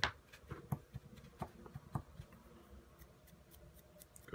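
Faint, irregular light ticks and scratches from a paintbrush working over a small resin miniature during dry-brushing, with a few stronger taps in the first two seconds.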